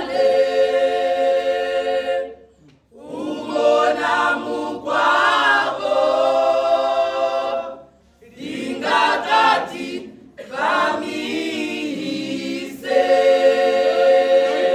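A choir singing a cappella, in sung phrases broken by short pauses, with a long held chord near the end.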